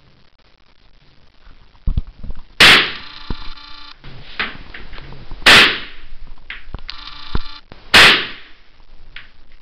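Kalashnikov AK-47 rifle firing three single shots about two and a half seconds apart. A metallic ringing follows the first two shots, along with a few smaller clicks.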